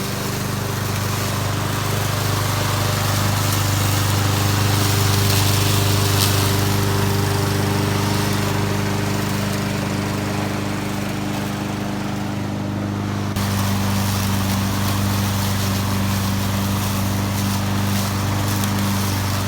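Honda HRX217 walk-behind lawn mower's single-cylinder GCV200 engine running steadily, a continuous drone. The sound shifts abruptly about thirteen seconds in.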